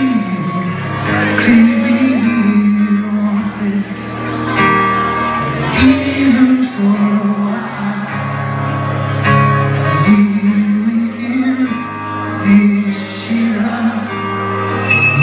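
Live rock band playing: a male lead singer over acoustic guitar, electric guitar and drums, heard from within the audience in a large hall.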